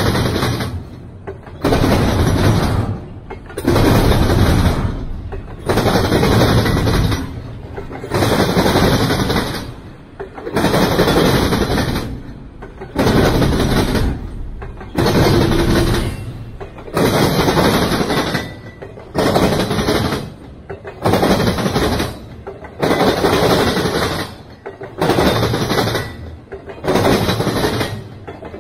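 Intermodal freight cars rolling past, their steel wheels running on the rails. The noise swells and drops in a steady rhythm about every second and a half as each car's wheel sets go by.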